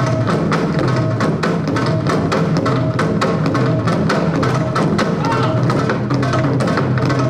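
Korean barrel drums (buk) beaten hard and fast with wooden sticks in a steady, driving rhythm of several strokes a second.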